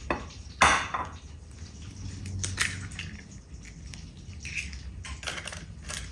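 A few separate knocks and clinks of kitchen utensils and dishes being handled, the loudest about two-thirds of a second in, over a low steady hum.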